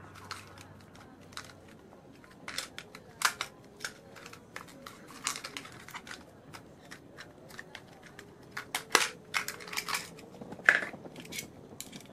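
Toy playset parts and packaging being handled and unpacked: scattered clicks, knocks and crinkly rustles at irregular moments.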